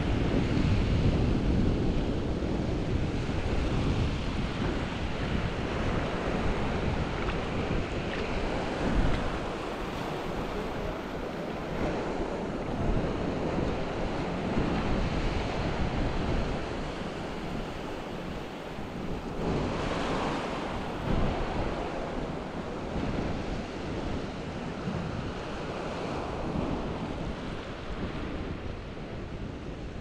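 Ocean waves breaking and washing up the shore, with wind on the microphone.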